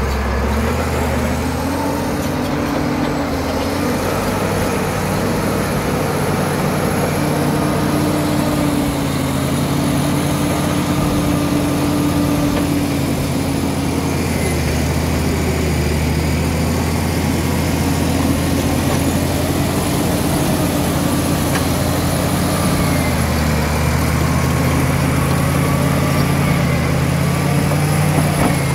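Caterpillar D7 bulldozer's diesel engine running under load while it pushes earth and rock, a steady heavy drone with a thin high whine above it. Its pitch sags briefly a few times as it works.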